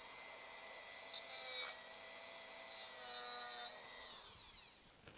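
Small high-speed rotary tool running steadily while scoring a reference mark into a metal part, its pitch shifting briefly as the bit bites, then winding down about four seconds in.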